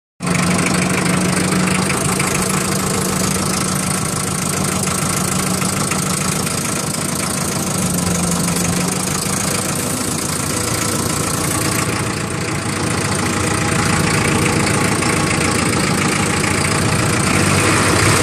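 Hanomag four-cylinder diesel engine of a 1965 Steinbock forklift running steadily as the forklift drives. A steady hum in the engine note fades after about nine seconds.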